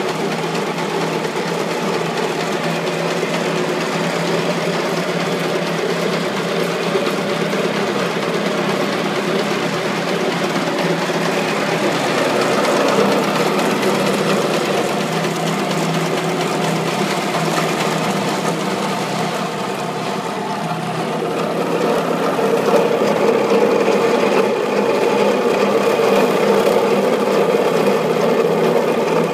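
PP string wound filter cartridge machine running, winding polypropylene yarn onto a filter cartridge: a steady, continuous mechanical running sound that gets a little louder about two-thirds of the way through.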